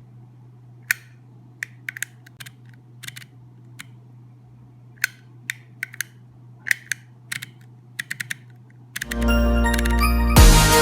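A run of short, sharp clicks at irregular spacing, some in quick pairs and triples. Music with a heavy electronic beat comes in loudly about nine seconds in.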